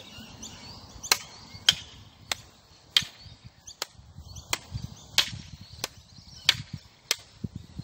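Sharp wooden clacks of stick-fighting strikes: long wooden training sticks hitting an umbrella held up to block. There are about ten hits at an even pace, roughly three every two seconds, with a couple of lighter taps near the end.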